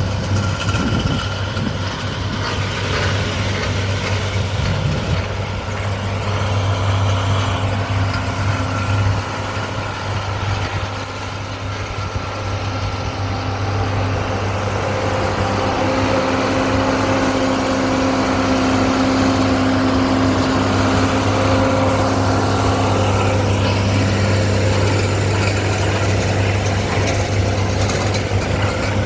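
John Deere 4430 tractor's six-cylinder turbocharged diesel running steadily under the load of baling hay with a 468 round baler. A faint steady whine rises over the deep engine hum through the middle, and the sound gets slightly louder after about halfway.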